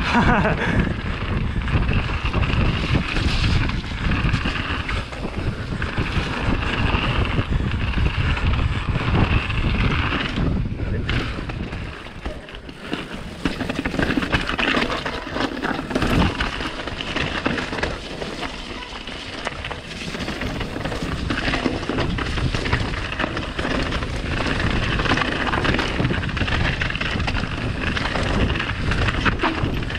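Mountain bike riding fast down a rough trail: tyres and frame rattling over the ground with heavy wind noise on the camera microphone, easing off briefly twice.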